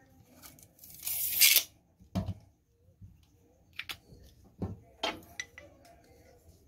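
Steel tape measure retracting with a short, loud zip about a second in, then a knock as it is put down, followed by a few light knocks and clicks of tools being handled on the table.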